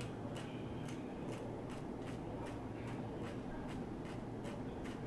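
Metal tweezers clicking shut again and again, about two to three clicks a second, as single hairs are plucked from a wig's lace hairline. A steady low hum sits underneath.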